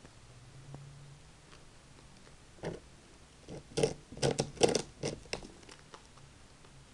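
A rabbit gnawing and crunching on a wooden chew roll coated with dried parsley and carrot: a run of quick, sharp crunching clicks beginning about two and a half seconds in and lasting about three seconds.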